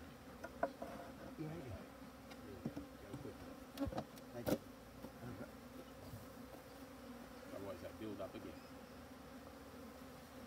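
Honeybees buzzing around a hive entrance: a faint steady hum, with single bees flying close past and their pitch rising and falling as they go by. A couple of sharp clicks come about four seconds in.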